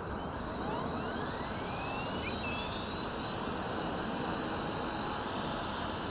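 WLtoys V950 RC helicopter's brushless electric motor and rotor spooling up in idle-up mode: a whine rising in pitch over the first three seconds or so, then holding steady as the rotor reaches speed.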